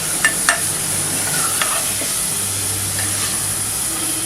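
Spoon stirring in a pot of boiling pulses (dal), with a steady hiss and a few sharp metal clinks of the spoon against the pot.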